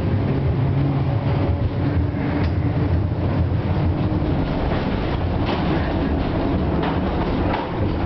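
FVV CSM-4 articulated tram heard from inside its passenger compartment while running on the track: a steady rumble and rattle of the car, with short clicks of the wheels over the rails now and then.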